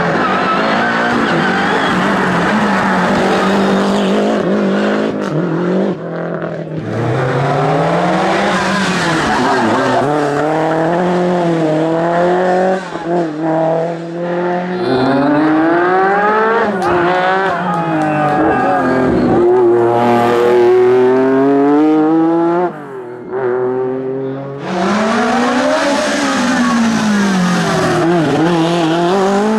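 Rally car engines revving hard, their pitch climbing and dropping again and again with throttle and gear changes, with some tyre squeal. The sound dips briefly a few times before the next car's run starts.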